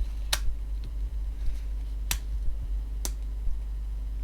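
Three sharp plastic clicks as a Nokia phone's parts are pressed into the clips of a new shell, over a steady low hum.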